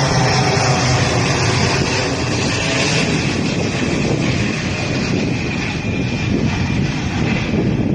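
Boeing 787-9's twin Rolls-Royce Trent 1000 turbofans at takeoff thrust: a loud, steady jet roar with a high fan whine.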